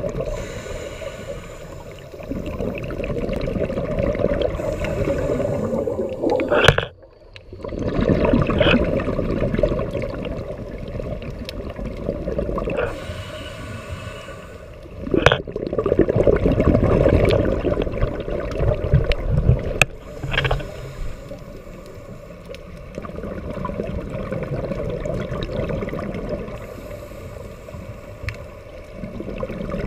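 Scuba regulator breathing heard underwater: a hiss on each inhale and a rumble of exhaled bubbles, swelling and fading every several seconds, with a few sharp clicks.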